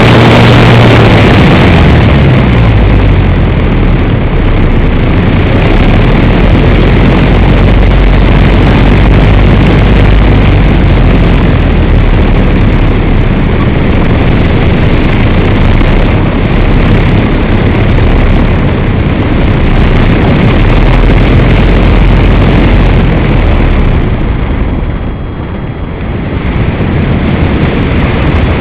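Loud, steady rush of wind over the onboard camera of an EasyGlider Pro RC glider in flight. A low hum fades away in the first two seconds, and the rush eases a little near the end.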